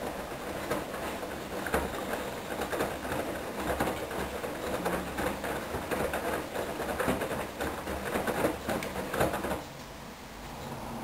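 Hoover DYN10124DP washing machine in its main wash, the drum tumbling a full 10 kg load of wet sheets: water sloshes and splashes with irregular knocks. The drum stops turning near the end, as the wash rhythm pauses.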